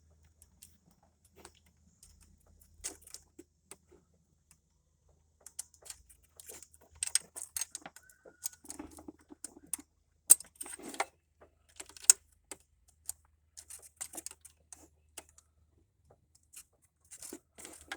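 Hand tools clicking and clinking against metal as the retaining screw of a camshaft position sensor is tightened. The clicks are sharp and irregular: sparse at first, then busier from about five seconds in.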